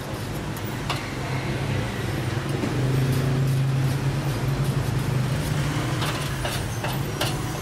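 Street traffic: a motor vehicle engine runs close by, swelling to loudest about three seconds in and easing off again. Scattered light clicks sound over it.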